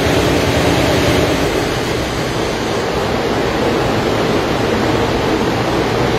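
Modified International pulling tractor's engine running on a hub dyno, loud and rough, held steady with no revving up or down.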